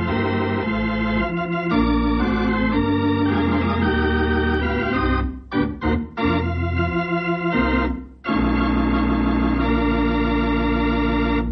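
Organ music, the radio programme's closing theme, played as sustained chords. It breaks off briefly twice, a little past halfway and again about two-thirds through, then stops suddenly near the end.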